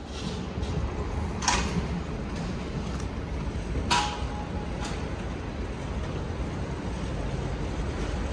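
Airport limousine coach's diesel engine rumbling as it pulls slowly in toward the kerb over city street noise. Two short sharp sounds stand out, about one and a half and four seconds in.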